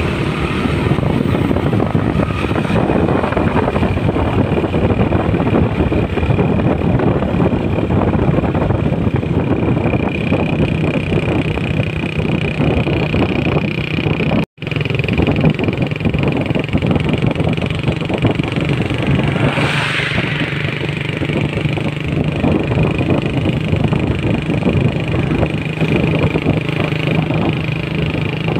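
Heavy MAN trucks driving past, a steady loud run of diesel engine and tyre noise. The sound breaks off for an instant about halfway through.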